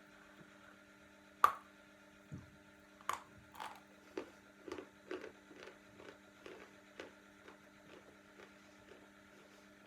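A person biting into a piece of porous, crumbly edible chalk with a sharp snap about a second and a half in, a second bite soon after, then chewing it with soft crunches about twice a second that fade away. A low steady hum sits underneath.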